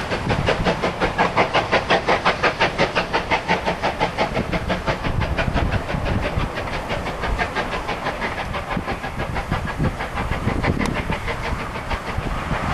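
Steam locomotive working hard as it hauls a passenger train away, its exhaust beating in a quick, even rhythm of about five a second that fades from about halfway as it draws off.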